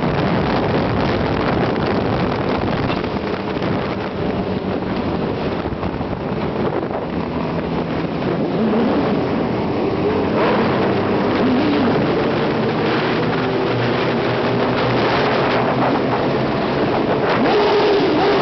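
Inline-four sport motorcycle engines running in a tunnel, their pitch rising and falling as the throttle is twisted, loudest near the end.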